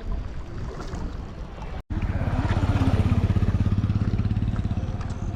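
A rushing noise, then after a cut about two seconds in, an engine running close by with a steady low throb.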